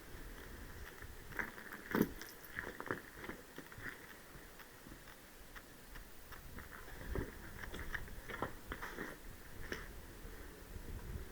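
Scattered light clicks and crunching knocks, with one sharper crack about two seconds in and another cluster near the end.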